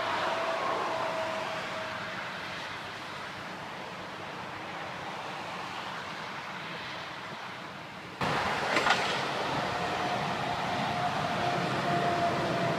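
Motorway traffic: tyre and engine noise of passing cars and lorries, with a faint steady whine from a passing vehicle. The noise jumps suddenly louder about eight seconds in.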